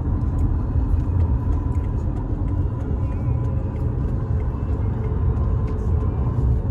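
Car driving, a steady low road-and-engine rumble with a faint thin whine on top.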